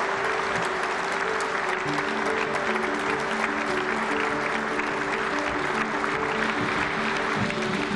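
Crowd applauding, with instrumental music of long held notes playing over the clapping.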